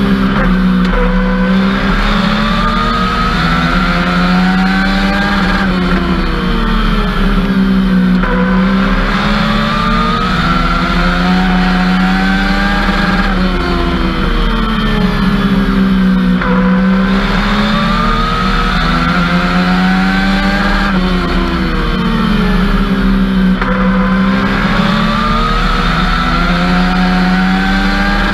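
Legends race car's Yamaha four-cylinder motorcycle engine heard from inside the cockpit under racing load, its note climbing hard along each straight and dropping off into each turn, about four times, once per lap of the short oval.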